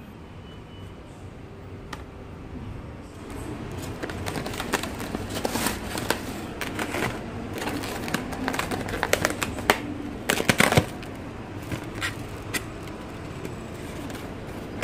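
Plastic carrier bags rustling and crinkling as styrofoam takeaway boxes are handled and opened: a run of sharp crackles that thickens from about four seconds in and is loudest about two-thirds of the way through.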